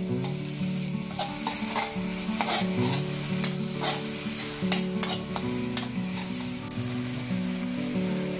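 Ground pork sizzling as it is stir-fried in a wok, with a metal spatula scraping and clicking against the wok, the strokes thickest in the middle seconds. Soft background music with held notes plays underneath.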